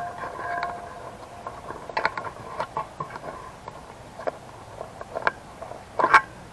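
Irregular sharp clicks and knocks, the loudest a quick pair about six seconds in, over a faint steady tone.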